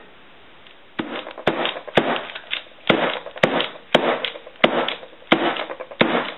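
A series of sharp knocks, about two a second and uneven, starting about a second in: a filled loaf mould of cold-process soap being knocked on the table to settle the batter.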